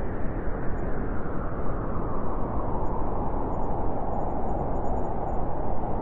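Steady rushing noise of wind and water aboard a moving ship, with a deep rumble underneath.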